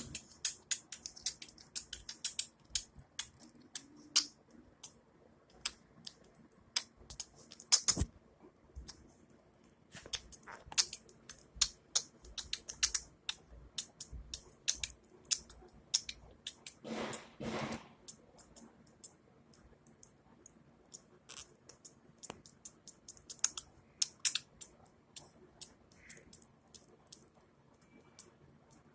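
Female budgerigar making fits of rapid, high-pitched sneeze-like clicks, which the owner takes for vomiting. The clicks come in clusters with short gaps, and there is one longer, louder burst of noise a bit past halfway.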